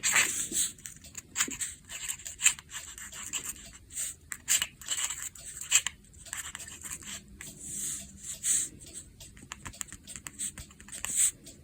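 Short, irregular scratchy strokes on a paper journal page as paint is worked on.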